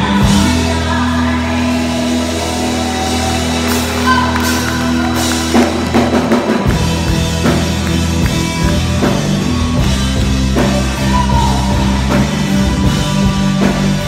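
Live rock band playing electric guitar, keyboard and drum kit: held chords over a sustained bass for the first half, then the drums come in with a steady beat a little past halfway.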